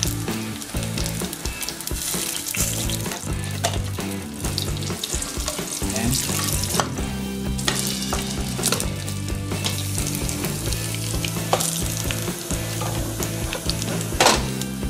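Diced pancetta sizzling and crackling in a nonstick frying pan as its fat renders out, stirred with a wooden spatula. A sharp knock comes near the end.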